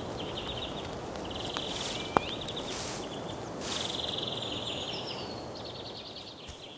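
Outdoor nature ambience: insects chirring in short, rapid pulsing trills, over a steady rushing background noise, with one sharp click about two seconds in.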